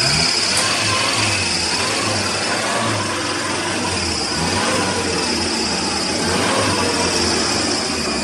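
Jeep engine idling steadily close by, with a steady high-pitched whine over it that starts abruptly with the engine noise.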